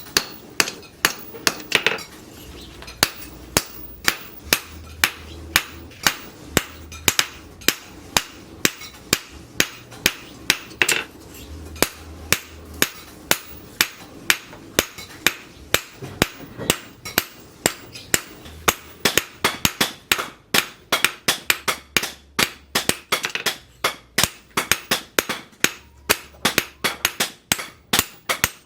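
Steady rhythm of hammer blows on hot leaf-spring steel over an anvil, each a sharp ringing strike, about two to three a second, quickening in the last third.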